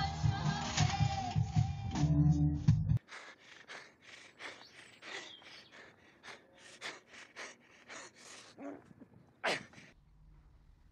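Live band playing amplified music with a singer, cutting off suddenly about three seconds in. Faint scattered clicks and rustles follow, with one brief louder swish near the end.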